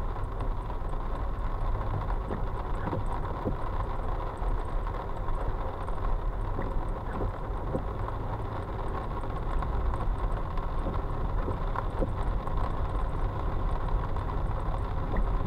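Steady low rumble of a car's engine and road noise heard inside the cabin as it idles and creeps through slow traffic in heavy rain, with a few faint scattered ticks of rain and wipers on the windshield.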